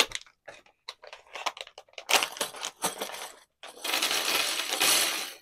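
Small plastic sewing clips clicking and rattling as they are handled, then a dense clatter about three and a half seconds in as a packet of them is poured out onto a table. It cuts off suddenly.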